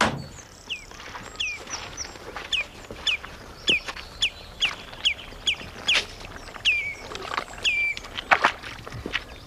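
A bird calling over and over with short, falling chirps, about two a second, and a few faint taps between them.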